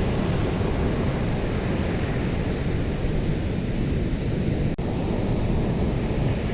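Ocean surf: a continuous, deep wash of breaking waves, with a momentary dropout about three-quarters of the way through.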